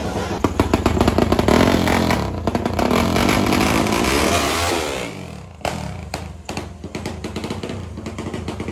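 Drag-race motorcycle engine revved hard for about five seconds, then dropping back and running unevenly at lower revs with short blips of the throttle.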